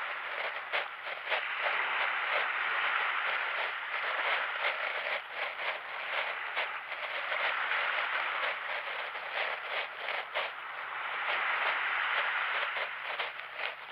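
Small waves washing onto a sandy beach: a steady hiss that swells and eases over a few seconds, with scattered crackles through it.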